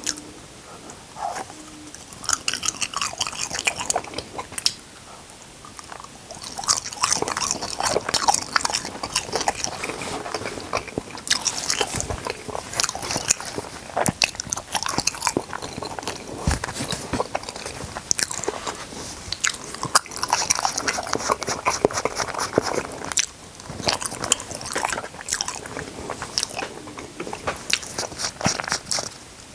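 Close-miked eating: biting, crunching and chewing, with dense crisp clicks and crackles coming in irregular clusters.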